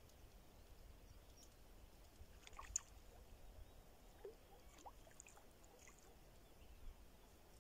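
Near silence: a faint low rumble with a few scattered small clicks, the sharpest a little under three seconds in.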